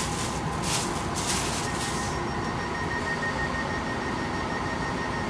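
Interior of a passenger train standing at a platform as its door opens: a steady low rumble with a hiss that stops about two seconds in, after which a steady high tone sounds.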